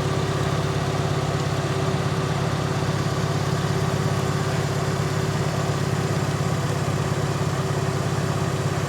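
Off-road 4x4's engine running steadily, with no change in revs.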